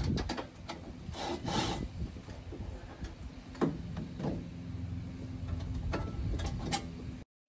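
Scraping and knocking as a truck camper's folding factory step assembly is handled and worked out of its mounting, over a steady low hum; everything cuts off suddenly near the end.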